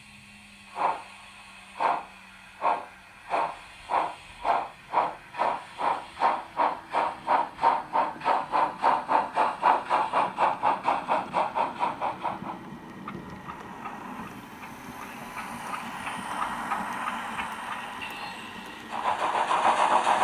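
ESU LokSound V5 sound decoder with a LeoSoundLab project in a Roco BR 50 model steam locomotive, playing exhaust chuffs through its loudspeakers as the locomotive starts off. The chuffs begin about one a second and speed up steadily until they blur into a continuous rush, which grows louder near the end.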